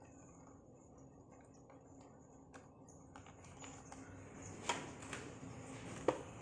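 Sparse light clicks and taps over a faint steady background, growing busier in the second half, with the sharpest clicks about five and six seconds in.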